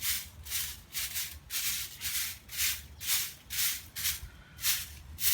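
Broom sweeping the ground in a steady rhythm of short, scratchy strokes, about two a second.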